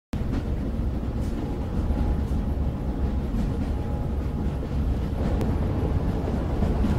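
Steady low rumble of a vehicle, with faint light clicks roughly once a second.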